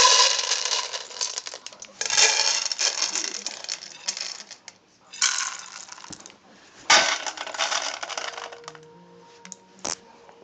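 Dry dog food rattling as it is poured into dog bowls, four separate pours of a second or so each, then a single click near the end.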